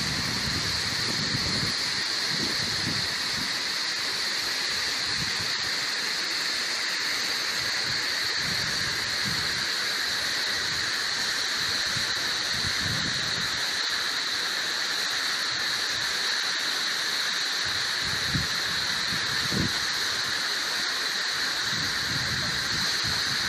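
Waterfall rushing: a steady, even noise of falling water that does not let up.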